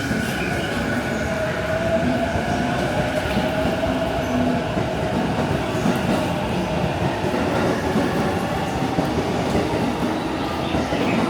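Electric commuter train moving through the station, a steady motor whine over the rumble of its wheels.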